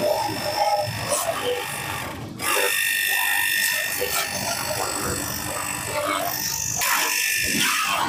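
48 V lithium-ion cordless pressure washer gun running, its built-in motor whining steadily while it sprays a narrow jet of water through the red nozzle with a hiss. The sound briefly stops a little over two seconds in, then carries on.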